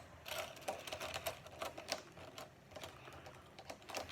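Small plastic Lego pieces clicking and clattering as they are handled, in quick irregular clicks that thin out after about two seconds.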